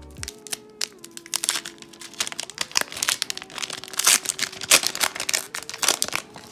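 Thick foil wrapper of a trading card pack being torn open and peeled back by hand: a dense run of crinkling and crackling, loudest about two-thirds of the way in, stopping abruptly at the end.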